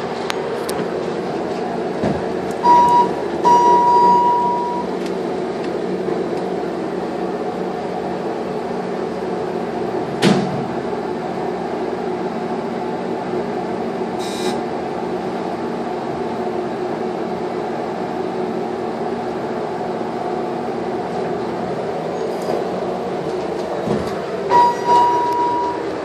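Hydraulic elevator car in motion with a steady hum. A short electronic beep and then a longer one come a few seconds in, a click about ten seconds in, and two more beeps near the end as the car arrives at its floor.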